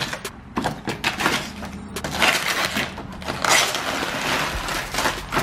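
Crackling and crinkling of the rain guard kit's packaging being handled, with many sharp clicks and rustles, busiest in the middle.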